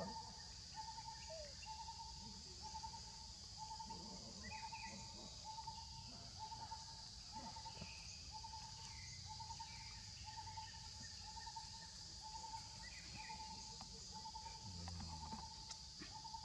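Outdoor ambience: a steady high-pitched insect drone, with a short animal call repeating evenly a little more than once a second and a few brief chirps.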